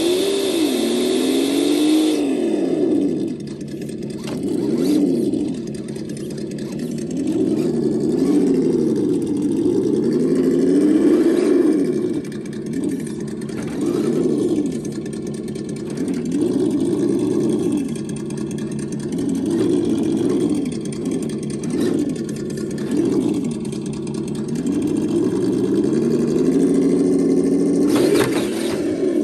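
Simulated engine sound from a WonVon engine sound simulator, played through a speaker in a Redcat Gen8 V2 RC crawler. It revs up and down over and over with the throttle. A high whine sits over it for the first two seconds or so.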